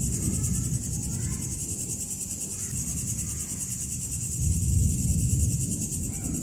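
Night chorus of crickets, a steady high trilling, over a continuous low rumble that swells for about a second partway through.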